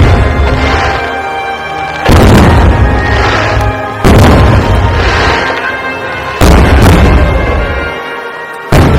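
Aerial firework shells bursting high overhead: a loud boom roughly every two seconds, five in all, each trailing off in a long echoing decay.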